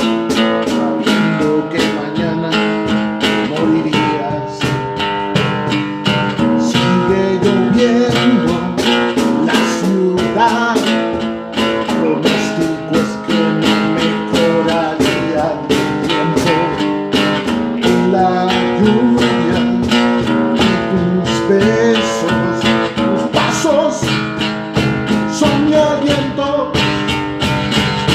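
Music: acoustic guitar playing steadily, strummed and plucked with a regular beat.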